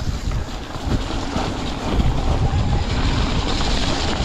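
Wind rushing over the camera microphone as a mountain bike rolls fast down a dirt trail, with the tyres running on dirt and short knocks and rattles from the bike over bumps.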